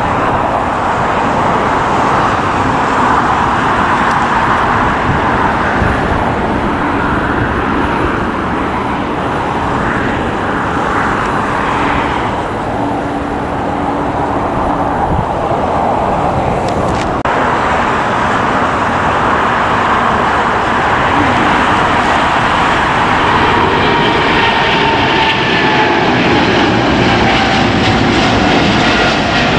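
Jet engine noise from a Boeing 747 freighter taxiing. About 17 seconds in the sound changes abruptly to a Boeing 777 freighter climbing out just after takeoff, its engines at climb power, with a high whine that slowly falls in pitch.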